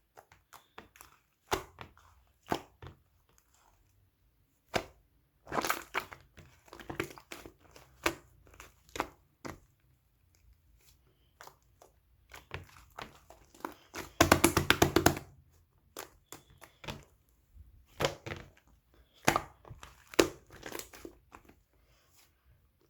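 White clay-type slime being pressed, stretched and squished by hand, giving irregular crackles and sharp clicks. A longer spell of dense crackling comes about fourteen seconds in.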